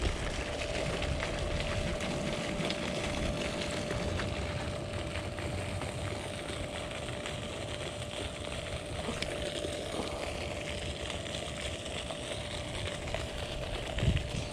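Steady outdoor background noise with a constant mid-pitched hum and no distinct events.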